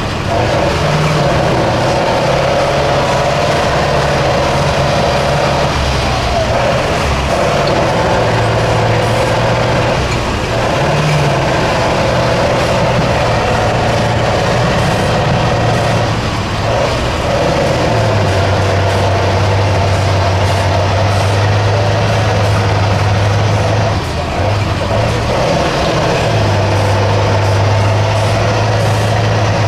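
A six-wheel-drive off-road trial truck's engine labouring on a steep climb, with its pitch stepping down and up again several times in the second half.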